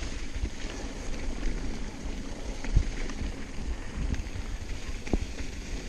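2014 Trance Advanced SX mountain bike riding over a dirt trail: a steady rumble of tyres on dirt with wind on the microphone, broken by a few sharp knocks and rattles from the bike, the loudest about three seconds in.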